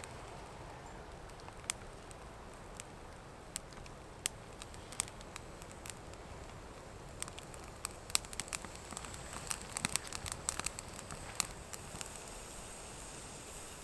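Small twig fire crackling in a folding metal wood stove: scattered sharp pops, few at first and coming thicker about eight to eleven seconds in, over a soft steady hiss.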